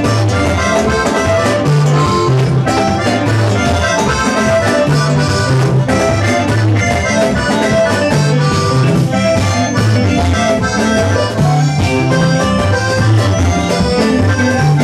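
Live church band playing upbeat Congolese gospel music without a break: electric guitars, keyboard, a repeating bass line and drums.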